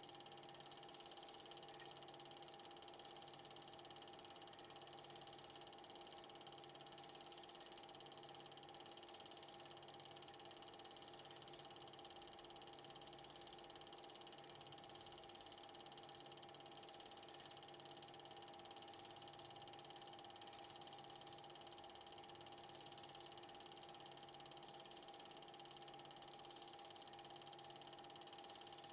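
Faint, steady mechanical hum and whirr with a soft low pulse repeating a little more than once a second, unchanging throughout; no other sounds.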